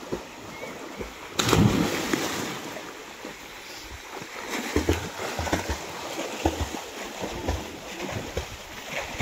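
A person jumping into a pool of water lands with one loud splash about a second and a half in, followed by irregular splashing and water churning as swimmers move through the water.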